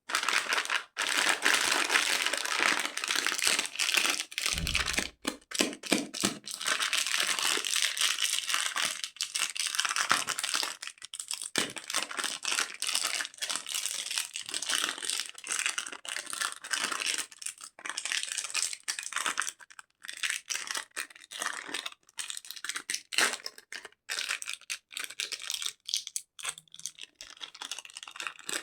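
Candy wrappers being crinkled and torn open: a dense run of crackles and sharp clicks, fullest in the first half and growing sparser toward the end.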